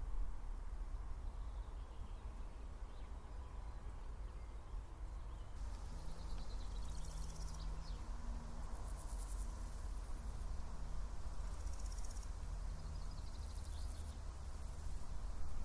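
An insect stridulating in a series of high, buzzing bursts, each lasting one to two seconds with short pauses between them, starting about a third of the way in. There is a steady low rumble underneath.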